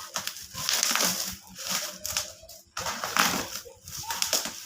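Packaging being handled and opened: irregular crinkling and crunching with scattered clicks and taps.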